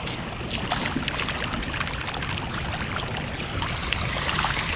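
Rainwater rushing along a flooded drainage ditch, a steady wash of running water with many small splashes and drips.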